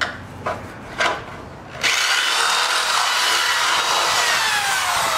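Cordless drill enlarging a too-small hole in the car's body for a rivet nut. A few clicks, then about two seconds in the drill starts and runs, its pitch falling steadily as it cuts.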